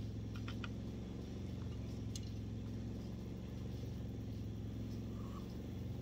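Portable generator engine running at a steady pitch, with a few light clicks in the first second.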